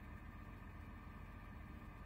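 Near silence, with only a faint steady low hum.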